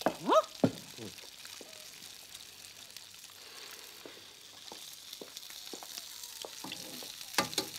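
Food sizzling in a frying pan on a kitchen stove, a steady hiss with scattered small clinks of cutlery and crockery. A short rising pitched sound opens it, and there is a louder clatter near the end.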